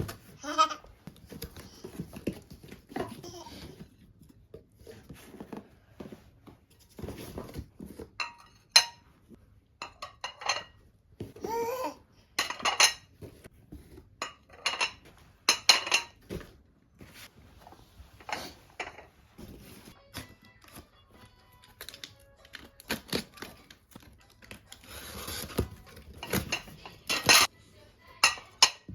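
Kitchen work: dishes, pots and utensils clinking, knocking and clattering in separate sharp strikes, several of them ringing briefly.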